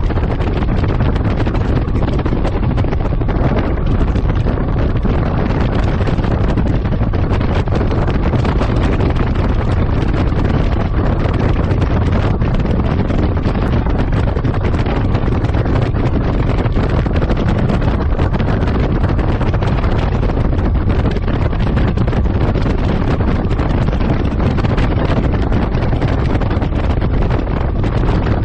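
Steady, loud wind buffeting the microphone on a bass boat running at wide-open throttle at 60 to 75 mph, over the rush of water along the hull and a Mercury Pro XS outboard running at about 5,700 rpm.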